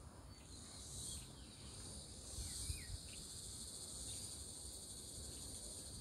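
Steady high-pitched insect buzzing, with a few faint short chirps over it.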